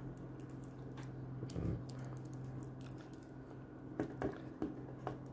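Faint clicks and taps of fingers handling a small vintage plastic Star Wars action figure, with several in quick succession near the end, over a steady low hum.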